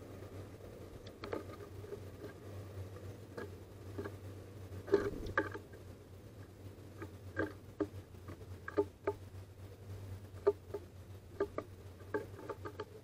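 Great tit pecking at seeds on a wooden feeder tray: irregular sharp taps on the wood, loudest about halfway through, over a low steady hum.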